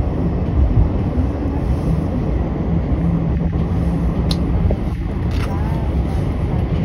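New York subway train running on elevated track, heard from inside the car: a steady low rumble of wheels on the rails. A hum comes in about three seconds in, and there are a couple of sharp clicks near the middle.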